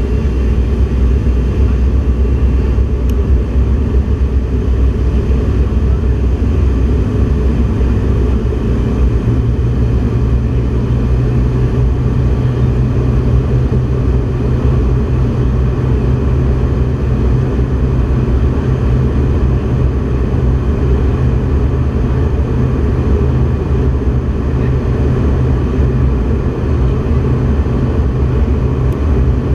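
Steady loud cabin noise of a microgravity research aircraft in flight: a deep, even engine and airflow rumble. About nine seconds in, a steady low hum joins it and holds.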